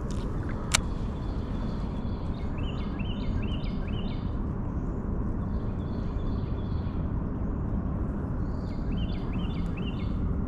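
A songbird singing three short phrases of quick, repeated high chirping notes over a steady low outdoor rumble, with one sharp click about a second in.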